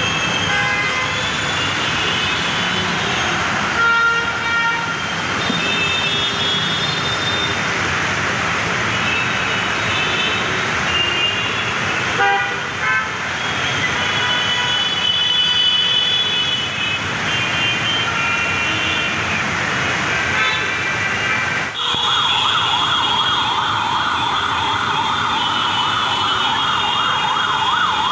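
Traffic churning through flood water: engines and the hiss and splash of water, with vehicle horns sounding in short honks at different pitches. About three-quarters of the way through, a siren starts, wailing rapidly up and down.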